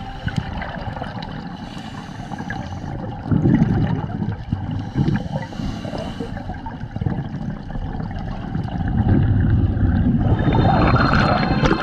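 Scuba regulator underwater: gurgling surges of a diver's exhaled bubbles, with a longer stretch of bubbling near the end.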